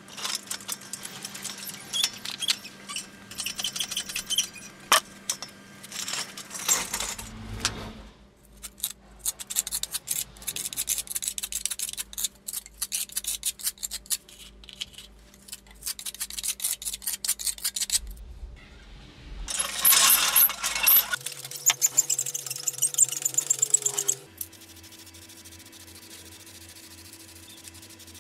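Metal pieces clinking and rattling in quick, irregular clicks over a steady low hum. The sound changes abruptly several times, and the clicks stop about three-quarters of the way in, leaving only a low steady drone.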